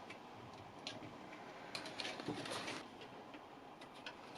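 Faint, scattered clicks and light scratchy ticks of small metal CPU-cooler mounting standoffs being screwed into a back plate by hand, with a cluster of clicks a little before the middle.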